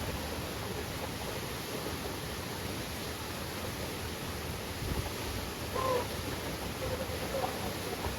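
Steady rush of a waterfall, with a few brief faint calls about six seconds in and again a little later.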